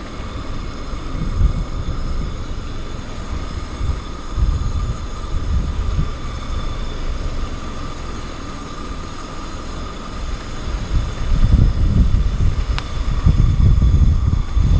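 Wind buffeting the microphone in gusts, loudest near the end, over a faint steady whine.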